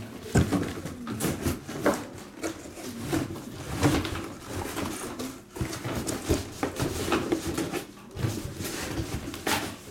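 Plastic packaging being handled: irregular crinkling and rustling with scattered light knocks.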